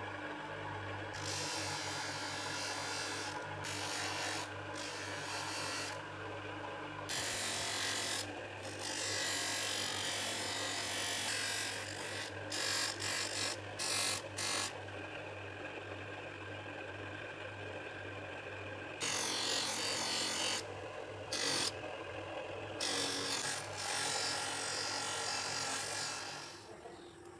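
Steel being sanded and polished: hissing, rubbing abrasive noise over a steady motor hum, coming and going in stretches of a second or more that start and stop abruptly.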